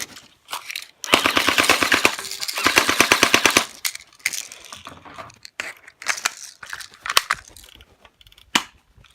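Airsoft M16-style rifle firing on full auto: a long burst of rapid shots starts about a second in and runs for about two and a half seconds. Quieter scattered shots and clicks follow, with a single sharp snap near the end.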